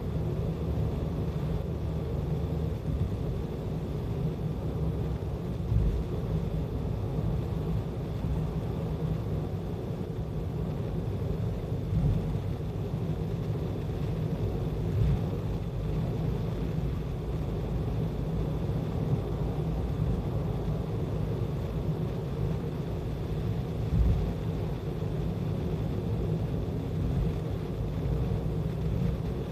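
Steady low road and engine rumble heard from inside a car cruising on an expressway, with a few brief thumps scattered through.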